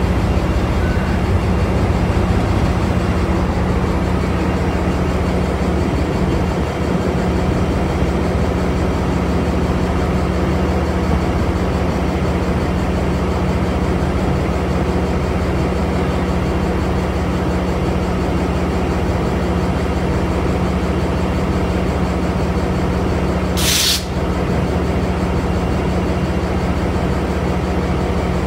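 Diesel locomotive idling steadily with a low drone. Near the end there is one short, sharp hiss of air from the brakes.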